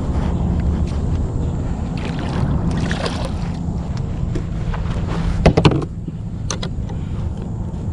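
Steady low rumble of wind and water around a small fishing boat, with a few handling knocks; the loudest is a quick clatter of several sharp knocks about five and a half seconds in.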